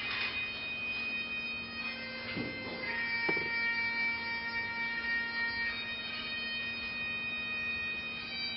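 Bagpipe music: a steady drone under a slow melody of long held notes, played back from a video over the room's loudspeakers.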